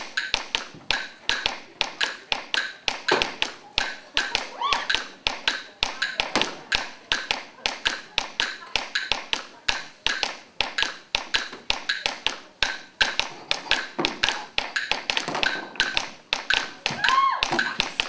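Steady, evenly spaced sharp taps, about three to four a second, like a ticking percussion rhythm.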